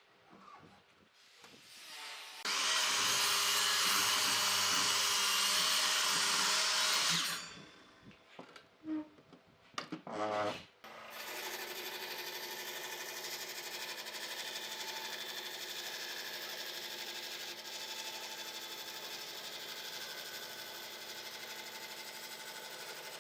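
Power tools working wood: a loud burst of tool noise lasting about five seconds, a few knocks, then from about halfway a tool running steadily with a faint whine.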